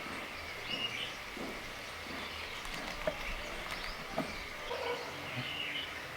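Outdoor rural background with small birds chirping on and off, and two short sharp clicks about three and four seconds in.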